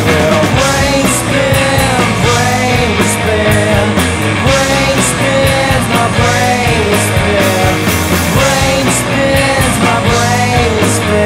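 Rock song playing: a full band with a steady beat and a melodic line that bends up and down in pitch.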